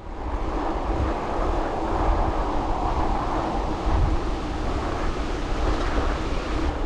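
Steady rush of wind on the microphone with tyre rumble from a gravel bike being ridden.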